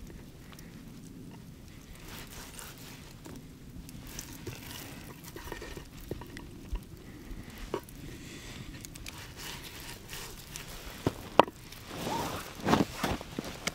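Seasoning shaken from a glass shaker onto a raw steak on a wooden board: a light pattering of grains with small clicks as the shaker is handled. A sharp knock comes about eleven seconds in, and rustling follows near the end.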